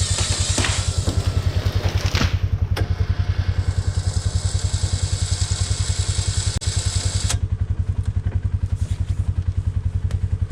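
Polaris Sportsman 570 ATV's single-cylinder engine running steadily while its electric winch whines, pulling a hung-up white cedar tree down through a snatch block; the winch stops suddenly about seven seconds in. A few sharp cracks sound in the first three seconds as the tree gives way.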